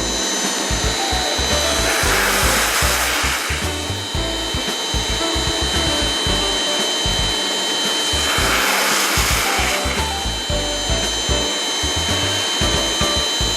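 Ultra-high-pressure washer running, with a steady high whine and a hissing spray that swells twice, about two seconds in and again about nine seconds in. Background music plays underneath.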